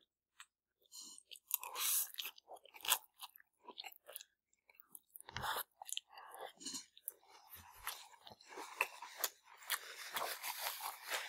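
Faint, irregular chewing and mouth noises of two people eating rice noodles and chicken skewer meat, with small clicks scattered through.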